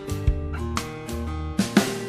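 Background music: plucked guitar and bass over a drum beat, with a quick run of drum hits near the end.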